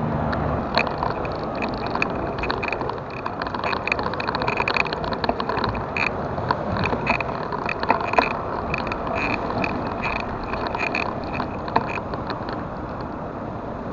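Bicycle in motion: a steady rush of wind and tyre noise, with frequent small rattles and clicks.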